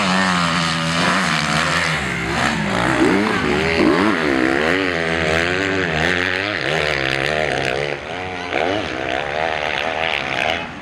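Motocross dirt bike engines revving hard, their pitch swinging up and down with the throttle, more than one engine at a time.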